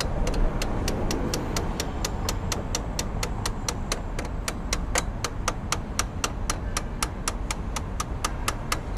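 Rapid, evenly spaced mechanical clicking, about four to five clicks a second, over a low rumble, around a motorcycle's rear wheel as it is refitted.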